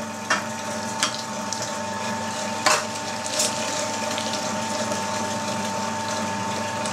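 Electric meat grinder running steadily, a motor hum with a constant tone, grinding pork through a coarse 20 mm plate. A few short knocks sound over it, the sharpest about two and a half seconds in.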